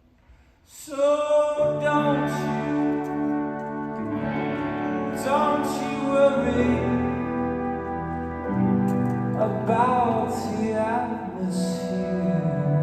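Orchestra with a bowed string section playing slow, sustained chords that change every couple of seconds. They enter about a second in, after a brief near-silent pause.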